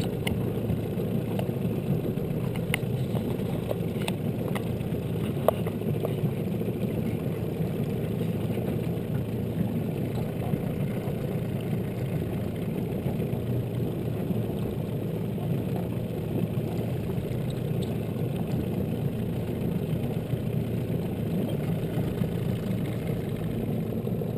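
Small boat's motor running steadily at low speed, a constant low rumble with no change in pitch. A few faint clicks sound between about three and six seconds in.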